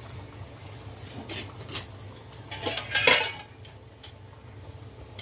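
A small metal spoon clinking against a spice container several times as garam masala is scooped out, the loudest clink about three seconds in, over a steady low hum.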